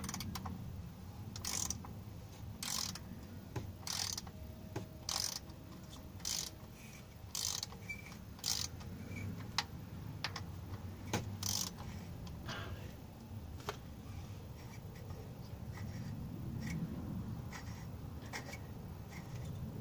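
A 3/8-inch socket ratchet with an oil filter cap wrench, clicking as it works the oil filter housing cap loose: clicks in strokes about once a second for the first nine seconds or so, then fewer and more scattered as the cap is turned by hand.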